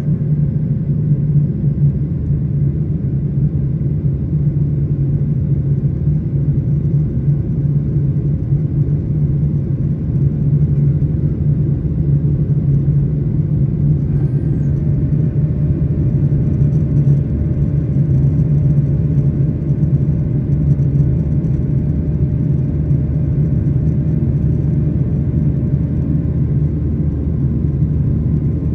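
Steady cabin roar of a Boeing 737-800 climbing out through cloud, heard from a window seat just behind the wing: a deep, even rumble of its CFM56-7B engines and airflow, with a few faint steady tones above it.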